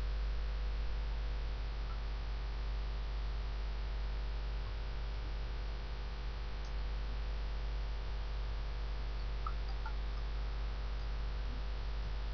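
Steady low electrical mains hum with an even hiss under it, unchanging throughout: the background noise of a computer screen-recording microphone with nothing else sounding.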